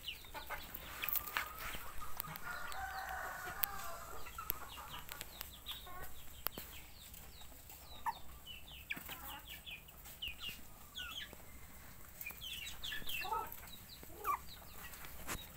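Chickens clucking and chirping in short bursts, with a rooster crowing once about two seconds in.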